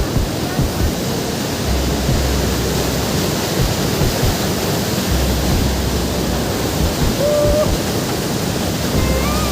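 Waterfall water rushing in a loud, steady, unbroken wash, with low rumbles of wind on the microphone now and then.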